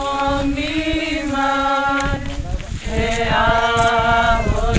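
A group of mourners singing together in long held notes, changing to a new chord about halfway through, with wind buffeting the microphone.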